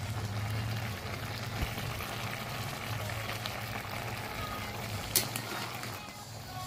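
Vegetables simmering and bubbling in a pot of pinakbet with a steady hiss, stirred with a metal ladle that clicks against the pot about one and a half seconds in and again near the end.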